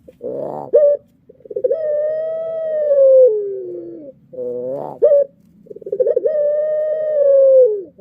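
Male puter pelung, a Barbary dove kept for its long drawn-out coo, cooing. There are two long, steady coos that drop in pitch at the end, each led in by a few short notes.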